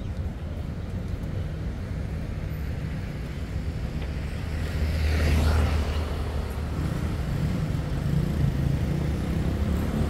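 City street traffic: a steady low rumble of engines, with a vehicle passing close by about halfway through, its sound swelling and fading.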